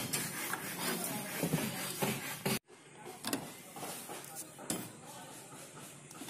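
PVC electrical conduit being handled and pushed into couplers on a steel rebar mesh: scraping and light knocks of plastic against steel, with voices in the background. The sound drops out abruptly about two and a half seconds in, then goes on quieter with a few clicks.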